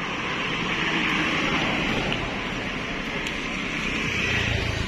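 A car driving past close by, over a steady hiss.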